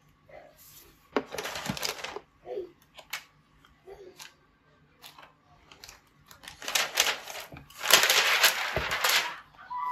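Protective plastic wrapping around a laptop crinkling and rustling as the laptop is handled and lifted out of its box. There is a short spell about a second in, a few light taps, then a longer, louder spell from about seven to nine seconds.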